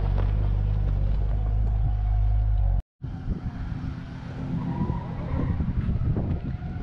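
Nissan Skyline R34 25GT Turbo's RB25DET turbocharged straight-six idling steadily. The sound drops out for a moment about three seconds in, then comes back as a more uneven low rumble.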